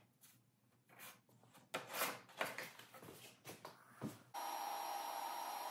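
Wood knocking and rubbing as a plywood panel and a wooden crosscut sled are shifted on a table saw, with a few sharp knocks about two to four seconds in. About four seconds in, a steady machine whir starts abruptly and holds level.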